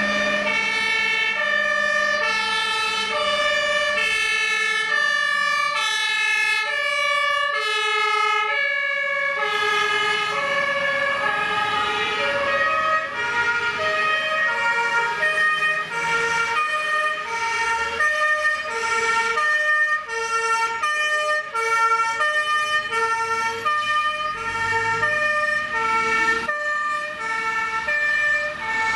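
German fire engines' two-tone sirens (Martinshorn) sounding on an emergency run, alternating high and low notes. From about a third of the way in, a second siren overlaps out of step with the first. A steady high tone runs underneath.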